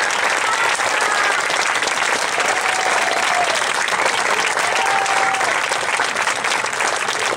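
Crowd applauding steadily, with a few voices calling out over the clapping.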